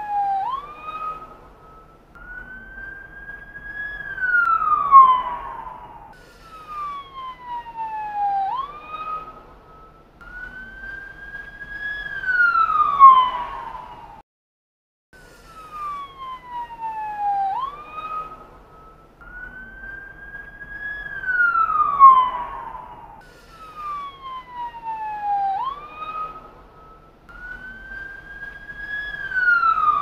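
Emergency vehicle siren wailing in slow rising and falling glides, roughly one rise and fall every four seconds, loudest on the falling sweeps. The sequence breaks off briefly about halfway through and then starts over.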